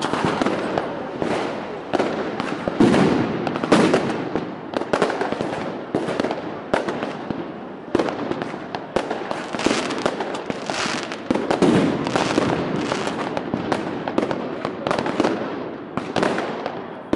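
Consumer fireworks and firecrackers going off all around without a break: many overlapping bangs and crackles, several a second.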